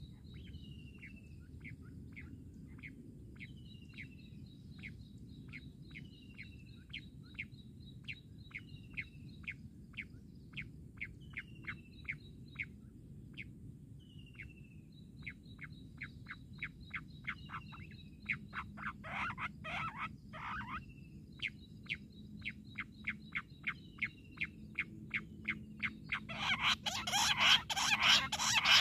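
Jungle bush quail calling: a long series of short, falling whistled notes, about two a second. About two-thirds of the way in come a few louder, harsher calls, and near the end a loud, rapid burst of calls.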